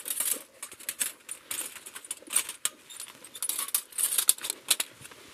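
Thin titanium parts of a folding twig stove clinking and rattling together as they are handled and packed away: a busy, irregular string of light metallic clicks and jingles.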